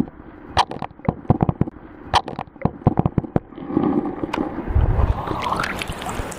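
Rapid sharp clicks and knocks heard underwater through a camera held in a river. They give way to a steady rush of water with a deep thump, then splashing as the camera comes up out of the water near the end.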